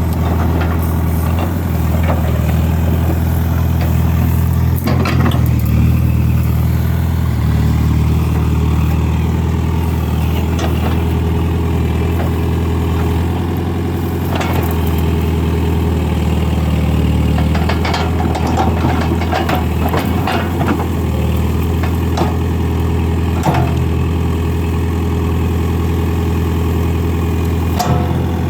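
A tractor-loader-backhoe's diesel engine runs steadily while it digs out tree stumps, with scattered knocks and clicks from the work.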